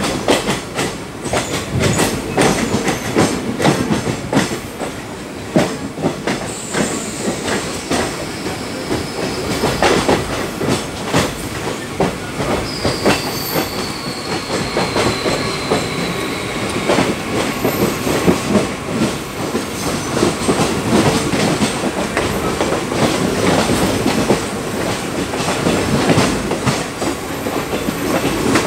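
Train wheels clattering over rail joints and points in a fast, irregular clickety-clack, heard from the open doorway of the moving train. High wheel squeals come in now and then, the longest about midway, sliding slowly down in pitch over a few seconds.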